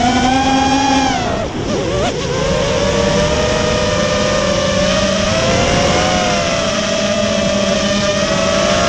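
Eachine X220 Wizard racing quadcopter's brushless motors and propellers whining, heard from on board the drone. The pitch falls sharply about a second and a half in, wavers briefly, then settles back into a steady whine.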